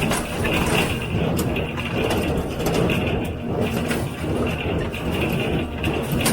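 John Deere 348 square baler and its #42 pan kicker ejector running: a steady mechanical clatter with a rhythmic, repeating beat and a few sharp knocks.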